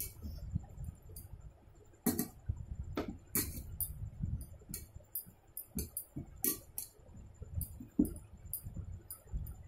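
Eating rice and chicken curry by hand from a steel plate: fingers mixing and scooping the rice, with irregular clicks and clinks against the metal plate, some sharper than others, over low mouth and chewing sounds.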